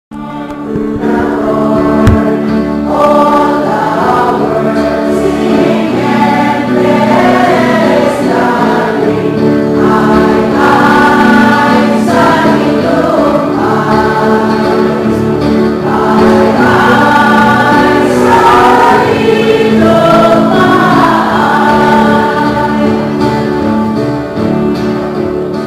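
A choir singing Christian music over a sustained, steady accompaniment. There is a brief low thump about two seconds in.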